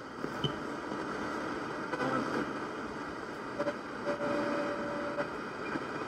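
Worldstar MBR-1 multi-band radio being tuned between stations: its speaker gives a steady hiss of static with faint snatches of broadcast. About four seconds in, a steady whistle is heard for about a second.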